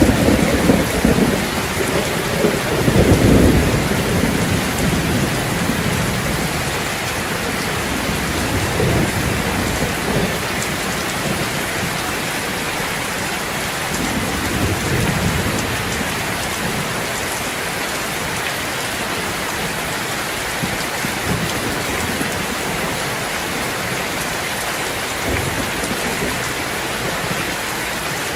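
Steady heavy rain hissing down, with low thunder rumbling in the first few seconds and fainter rumbles later.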